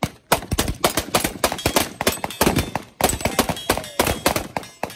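Handgun fired in fast strings of shots, several a second with short breaks between strings, with steel targets ringing on the hits.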